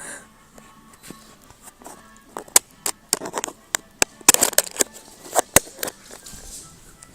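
Dogs scuffling and playing: a run of sharp clicks, knocks and short scrapes, bunched in the middle few seconds, with a faint TV in the background.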